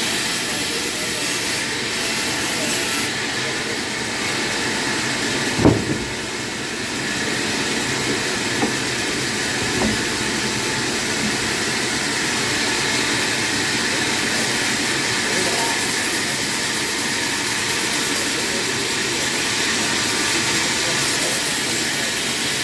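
Steady, even hiss-like noise, with one sharp knock about six seconds in and a few light ticks shortly after.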